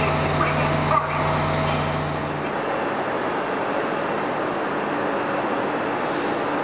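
Train station sound: a train's steady low hum that cuts off abruptly about two and a half seconds in, followed by a steady even rushing noise from a Renfe electric commuter train standing at the platform under the train shed.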